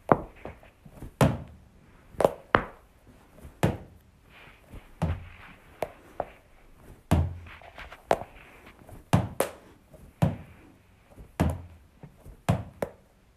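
Small sticky squishy toy balls (Globbles) thrown against a wall, each hitting with a dull thunk. About a dozen hits come roughly once a second, some in quick pairs.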